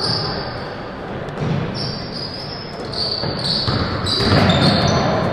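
Basketball bouncing on a hardwood gym floor during play, with voices in the background.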